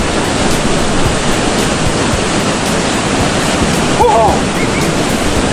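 Waterfall pouring into a rock pool: a steady, loud rush of falling water.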